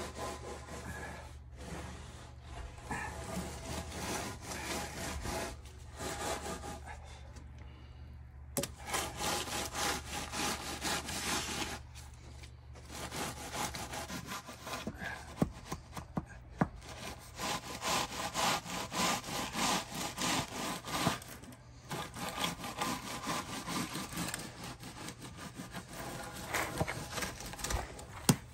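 A wooden board scraping over wet concrete in repeated back-and-forth strokes as a fresh slab is screeded and smoothed.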